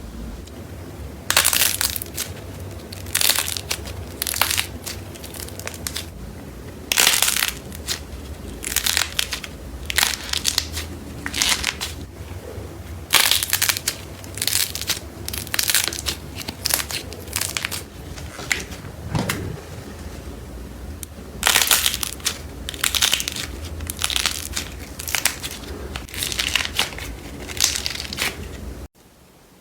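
Slime being squeezed and pressed by hand, crunching and crackling in repeated irregular bursts.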